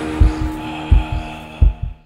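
Heartbeat sound effect: three slow double thumps, deep and pulsing, over a steady low drone with a faint high tone, dying away at the end.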